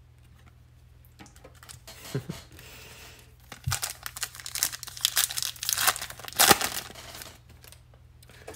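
A 2021 Bowman baseball card pack being torn open by hand: the wrapper crinkles and tears for a few seconds, loudest just before it stops. Faint taps of cards being handled come first.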